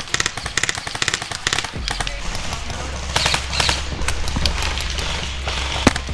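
Airsoft guns firing in quick runs of sharp shots, irregularly spaced, over a steady low rumble.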